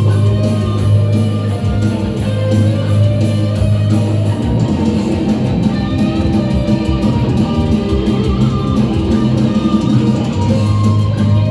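Live instrumental rock band playing: sustained electric guitar melody over a steady bass line and drum kit with cymbals.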